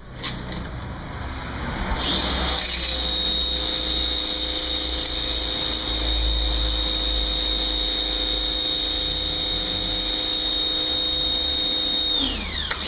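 Pressure washer spraying: its motor whines up to speed about two seconds in and runs steadily under the hiss of the water jet, then winds down near the end.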